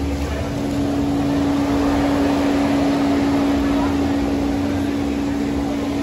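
A steady mechanical drone with a constant hum, unchanging throughout, over a general haze of outdoor background noise.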